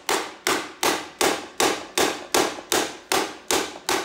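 Hand hammer striking the metal chain case of a Poulan front tine tiller held on an anvil. The blows come at a steady pace of about three a second, each a sharp metallic strike that rings briefly.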